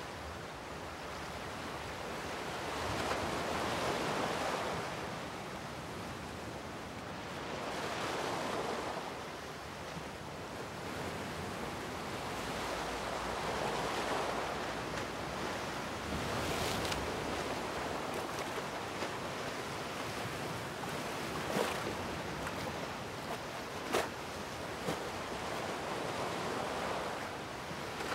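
Sea waves washing against rocks, the surf swelling and falling back every four or five seconds, with wind. A few brief, sharp sounds stand out in the second half.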